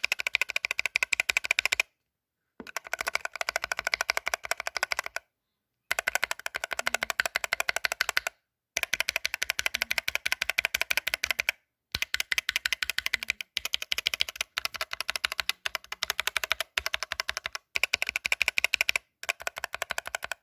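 Typing sound test on a 60% mechanical keyboard with Gateron Red optical linear switches, the keys clacking rapidly. The typing comes in runs of about two to three seconds broken by short silent gaps.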